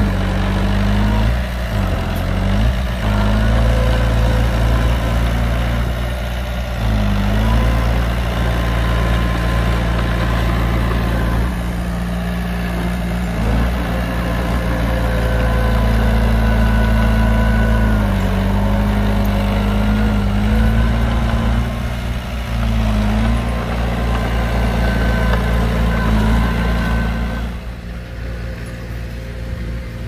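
Heavy earthmoving diesel engine running, its note dipping and recovering several times as the load changes, with thin whining tones above it. It gets quieter near the end.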